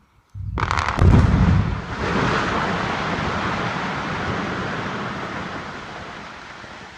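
Quarry blast: a sudden boom with sharp cracks, followed by a long rolling rumble that slowly fades over several seconds.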